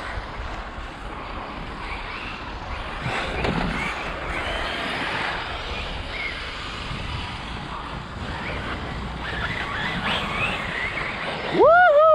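Traxxas X-Maxx electric RC monster truck running at a distance under outdoor wind noise. Near the end its brushless motor whines loudly, rising in pitch and then falling as the truck accelerates and slows close by.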